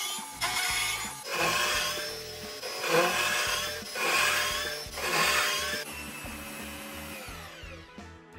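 A tool working wood in about six noisy strokes, each a second or so long, that stop about six seconds in, over background music.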